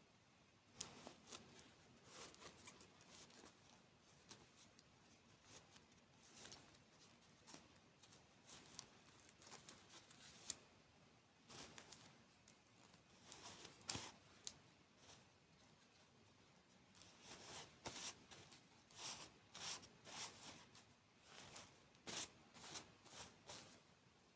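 Close-miked eating sounds: irregular crisp crunches and crackles of candy and desserts being bitten and chewed, growing denser in the last third.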